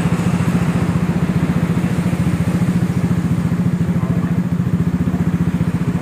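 Honda PCX 160 scooter's single-cylinder engine idling steadily through an SKR aftermarket racing exhaust built for a deep bass note, giving an even, rapid pulsing exhaust sound with no revving.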